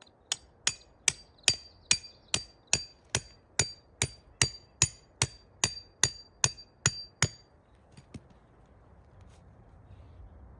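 A hammer striking metal in a steady rhythm: about eighteen even blows, a little over two a second, each with a short metallic ring. The blows stop about seven seconds in.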